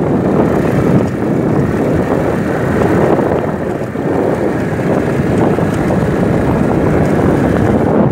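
Loud, steady wind rush on the microphone of a phone held up while riding on a moving motorcycle, mixed with the ride's road and engine noise.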